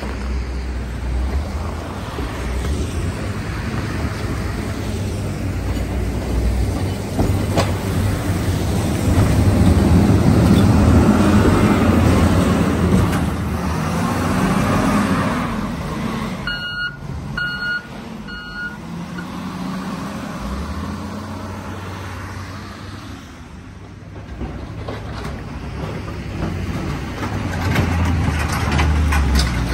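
Diesel wheel loaders clearing snow: a heavy diesel engine runs and revs, loudest as a loader passes close. About halfway through, a reversing alarm gives three short beeps.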